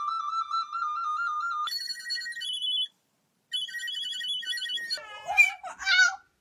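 A plastic recorder played in rapid high trills: first one warbling held note, then shorter trilled phrases pitched higher, broken by a brief gap about three seconds in. Near the end come a few wavering, sliding cries.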